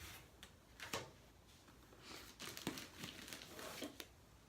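Faint crinkling and rustling of packaging being handled, with a few light clicks and taps, mostly in the second half.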